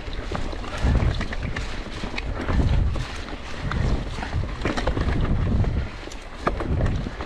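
Mountain bike riding fast down a dirt forest trail: tyres rumbling unevenly over roots and ruts, with frequent sharp rattles and knocks from the bike and wind buffeting the microphone.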